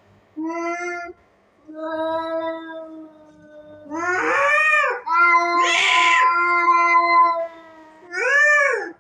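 Domestic cats caterwauling in a fight standoff: five long, drawn-out yowls, some held low and level and some rising and falling, with a hiss about six seconds in.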